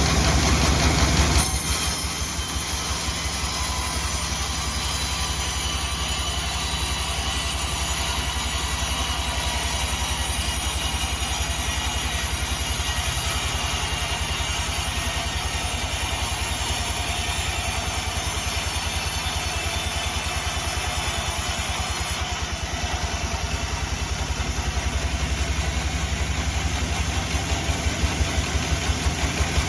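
Engine of a log sawmill running steadily with an even, rapid chugging beat that grows heavier near the end.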